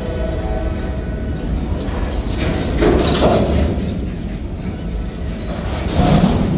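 CSX freight train rolling past close by, empty centerbeam flatcars and an autorack going over the rails with a steady rumble of wheels. The wheel clatter swells twice, about three seconds in and again near the end.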